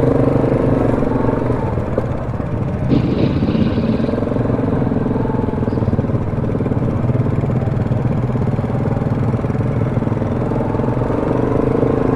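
ATV engine running steadily as the quad moves along the trail, with a brief clatter about three seconds in.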